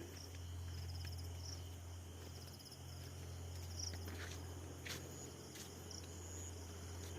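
Crickets chirping in short pulsing trills over a steady low hum, with a couple of brief clicks about four and five seconds in.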